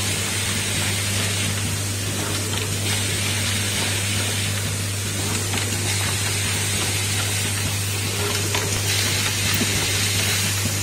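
Automatic bimetal contact riveting machine running: a steady low hum under a constant hiss, with a few faint light ticks.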